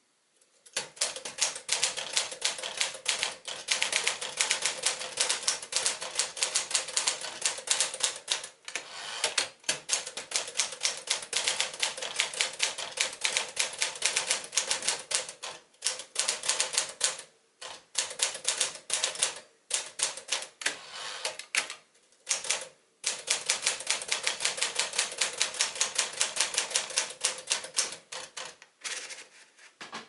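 1956 Smith-Corona Clipper manual typewriter being typed on: a rapid, steady clatter of keystrokes, typebars striking the platen several times a second, broken by a few short pauses.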